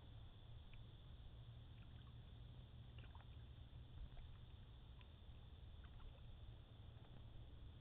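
Very quiet sounds of a canoe paddle in the water: scattered faint drips and light ticks over a low steady rumble.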